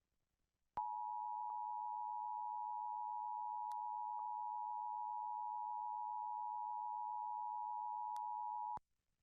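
Emergency Alert System attention signal: two steady tones sounding together near 1 kHz, the 853 and 960 Hz alert tone. It starts about a second in, holds unchanged for about eight seconds and cuts off sharply, the signal that comes ahead of an EAS message, here a national test.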